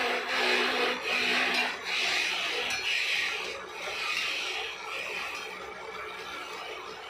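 Rasping, rubbing sound of wood being worked by hand on a freshly turned wooden trowel handle, coming in uneven swells about once a second and fading after about four seconds.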